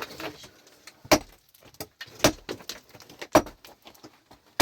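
Pickaxe striking rock in a steady rhythm, a sharp metal-on-stone blow about once a second, with small clicks of loose stone between the blows.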